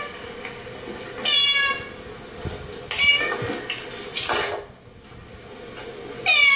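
Cat meowing from a television's speakers: four short meows, each dropping in pitch.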